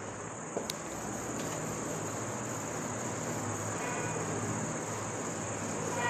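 Steady high-pitched insect chirring, with a single faint click about half a second in.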